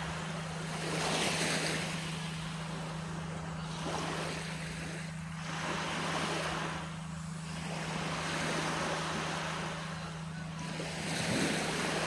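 Small waves breaking and washing up a sandy beach, the surf hiss swelling and falling back about every two to three seconds. A steady low hum runs underneath.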